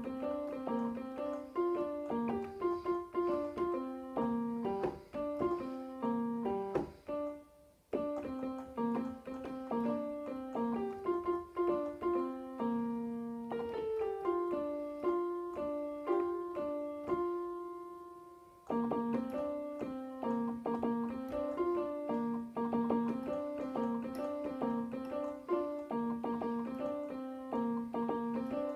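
Digital piano played, a continuous run of notes with a short pause about a quarter of the way in. Past the middle a held chord fades out before the playing starts again.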